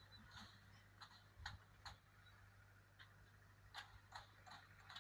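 Near silence with faint, irregular short clicks, about two or three a second, over a low steady hum.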